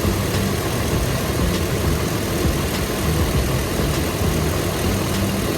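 2008 Toyota Tacoma engine idling steadily with the air conditioning running, its system freshly recharged with R134a refrigerant.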